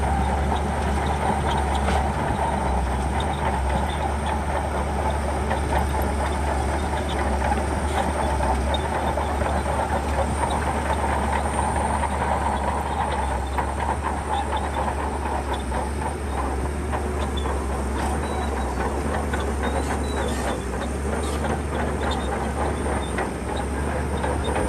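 Shantui crawler bulldozer working: its diesel engine running steadily under a constant clatter of many small clicks from the steel tracks.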